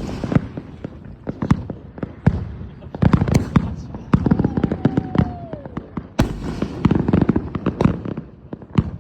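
Consumer fireworks going off in a rapid, uneven string of sharp bangs with crackling bursts, thickest in two clusters. About four seconds in, a whistle slides down in pitch.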